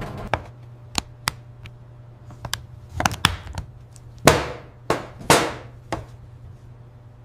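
Hard chocolate bars and a plastic mould knocking and tapping on a stainless-steel counter: a dozen or so sharp separate knocks, the two loudest a little past halfway, each with a short ringing tail. A low steady hum runs underneath.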